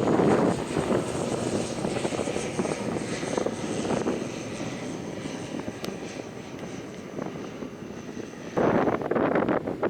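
Airliner's engines running with a faint high whine, dying away as the aircraft moves off. Near the end, wind buffets the microphone loudly.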